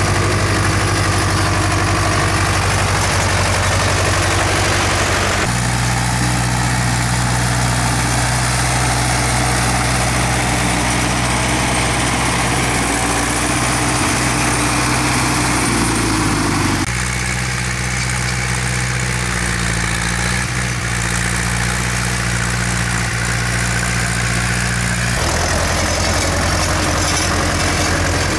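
Ursus C-360 tractor's diesel engine running steadily in several spliced stretches at different engine speeds, the pitch jumping at each cut, including a stretch under load pulling a plough.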